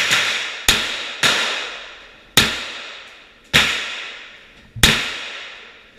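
Semi-automatic shots from an H&K 416 rifle converted to .22 rimfire: five single shots at uneven gaps of about half a second to a second, each followed by a long echo that dies away down the enclosed tunnel range.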